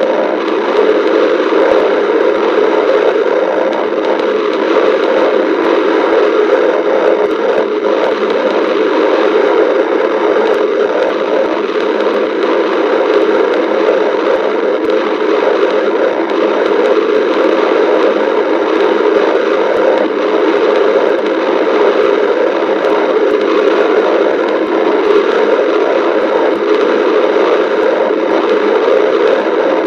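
A person's stomach growling and gurgling, continuous and crackly under a dense steady hiss, with no breaks.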